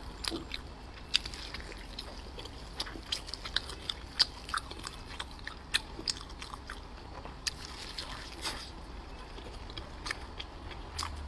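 Close-miked biting and chewing of a cheese-filled dumpling: wet mouth smacks and small sharp clicks, coming irregularly throughout.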